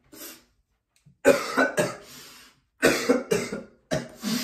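A man coughing hard in a fit of short, harsh coughs that come mostly in pairs, about six in all.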